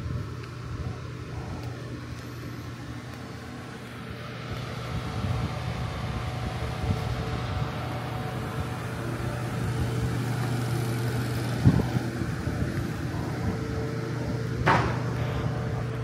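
Outdoor ambience: a steady low hum, with wind on the microphone growing louder from about four seconds in. A knock near the middle and a sharper click near the end.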